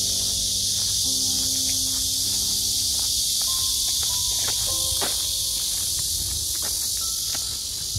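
Dense, steady high-pitched chirring of an insect chorus on a summer evening, the loudest sound throughout, over a low steady rumble. Soft held musical notes sound underneath in the first few seconds.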